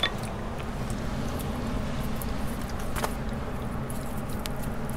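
Steady low outdoor rumble, with one sharp click about three seconds in as rocks are handled, plus a few fainter ticks.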